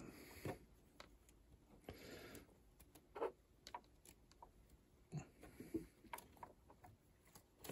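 Near silence with faint, scattered clicks and light rustles from hands handling small LEGO parts and wiring, a few soft ticks spread a second or two apart.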